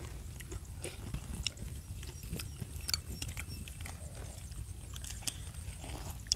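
Eating at a meal: chewing and scattered small clicks and taps of utensils, over a low steady rumble.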